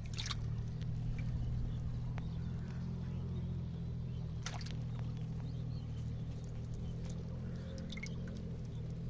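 A steady low engine drone, with scattered small clicks and drips of a wet net and fish being handled over a basin of water.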